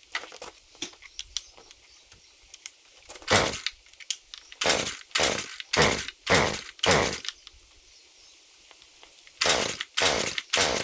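Recoil pull-starter of a Stihl FS 50 C two-stroke string trimmer yanked again and again, each pull a short whir: a run of five quick pulls, a pause, then more pulls near the end. The engine does not catch on these first start attempts after a carburetor replacement.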